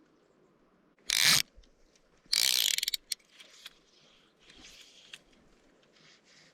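Fly reel's click-and-pawl drag buzzing in two short bursts as line is pulled off or reeled, the second burst longer with rapid clicks.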